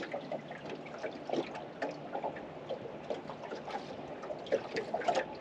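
Small waves lapping irregularly against the aluminium hull of a small tinny boat, with many short little splashes.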